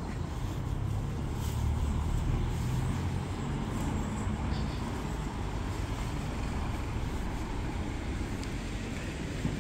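Steady street traffic noise, with the low rumble of a passing motor vehicle strongest in the first few seconds.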